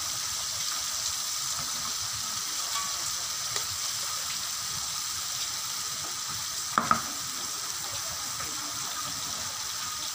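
Battered squid rings deep-frying in hot oil in a wok, a steady sizzle. A little under seven seconds in come two sharp clinks of the metal tongs against the wok as the pieces are turned.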